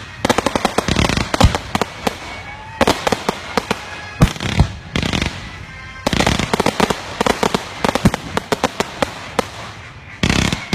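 Aerial fireworks going off in quick volleys: clusters of crackling reports with several louder single bangs and short lulls between them.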